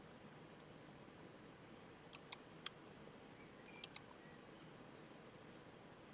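Computer mouse clicking: a few scattered sharp clicks, some in quick pairs like double-clicks, over a quiet room background.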